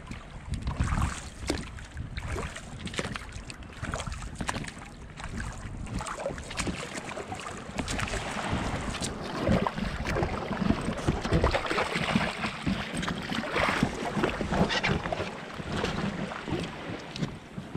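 Oars dipping and splashing as an inflatable dinghy is rowed into the shallows, with wind buffeting the microphone.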